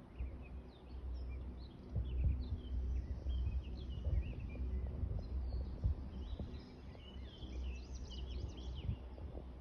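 Many small birds chirping and twittering, a dense chorus of short overlapping calls that grows busiest near the end. Under it runs a steady low rumble with a few dull knocks, the loudest part of the sound.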